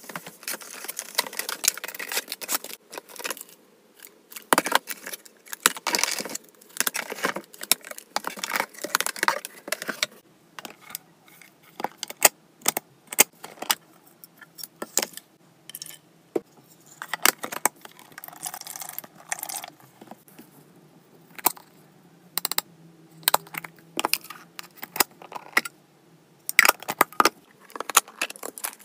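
Clear plastic storage containers with push-button lids being handled and unpacked: many sharp plastic clicks and clacks as boxes and lids knock and snap, with stretches of rustling packaging in between.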